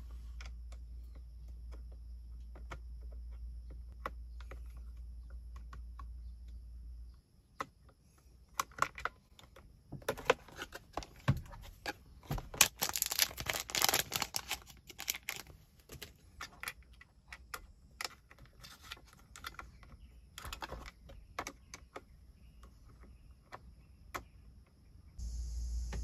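Scattered small clicks and rattles of hands handling a car's air-conditioning control panel and pushing small LED bulbs into its sockets, busiest about halfway through. A steady low hum sounds under the first seven seconds, then stops.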